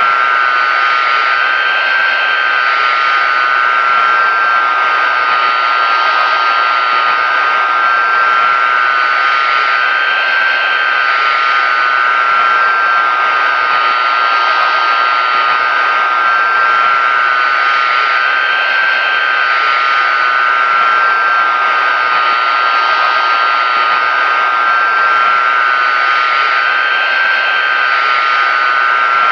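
Pratt & Whitney JT9D-7 turbofan engines of a Boeing 747-200 running steadily. An even roar carries a strong, steady high-pitched whine on top.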